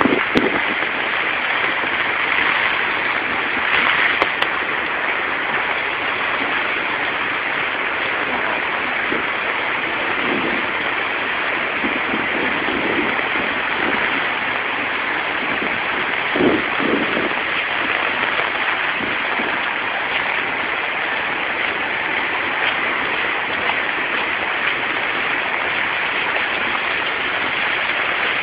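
Heavy rain falling steadily onto a flooded street, a constant hiss of rain on standing water and pavement, with a few brief louder moments.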